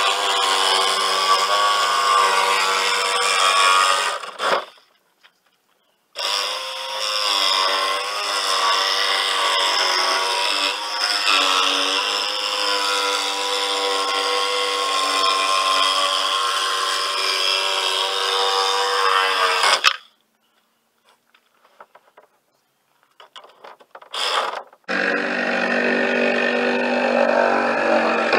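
Handheld power tool motor running hard in long stretches: it stops about four seconds in and starts again, runs steadily until about twenty seconds, then gives a short burst before running again to the end.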